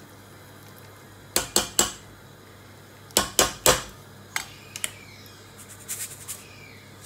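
Metal spoon knocking against metal cookware as rice is tapped off it into the pot: two quick sets of three sharp taps, then a few lighter clinks.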